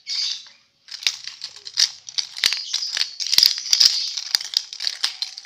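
Small plastic rattle shaken by hand in quick, irregular bursts of rattling, with a brief pause about half a second in.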